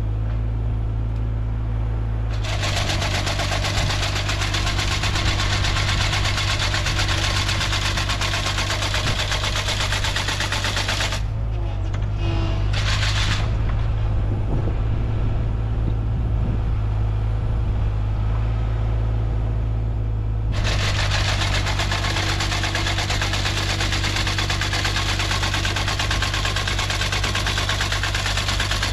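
Mini excavator's engine running steadily, with its hydraulic finger-bar mower head clattering rapidly as the reciprocating knives cut brush. The cutter runs from about two seconds in, stops for several seconds midway apart from a brief burst, then starts again and runs to the end.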